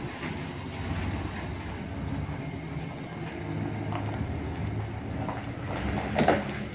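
A 1992 Chevrolet Caprice's 5-litre V8 running at low revs as the car drives slowly away over a gravel lane. There is a brief louder surge about six seconds in.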